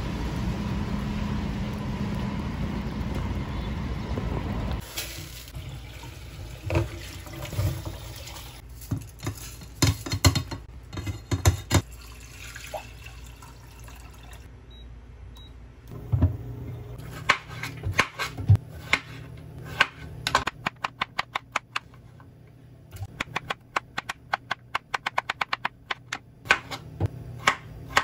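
Steady outdoor background noise with a faint hum for about five seconds. Then kitchen sounds: knocks and clinks of cookware, water poured into a pot of grains, and a knife chopping quickly on a bamboo cutting board near the end.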